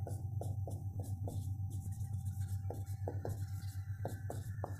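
Marker pen writing on a whiteboard: a series of short, irregular strokes and taps over a steady low hum.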